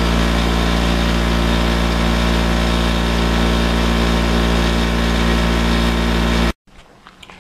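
Bench grinder with a wire wheel running steadily, a loud even motor hum with the wheel spinning free of the metal, cutting off suddenly about a second before the end.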